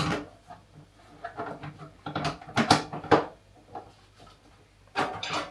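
Knocks and clatters of kitchen items being handled and set down. A few sharp ones come between about two and three seconds in, and a short cluster comes near the end.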